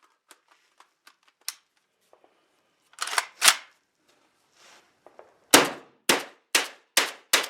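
JTS AK-style 12-gauge semi-automatic shotgun firing. A few light clicks come first, then two shots about three seconds in, then five shots in quick succession about half a second apart.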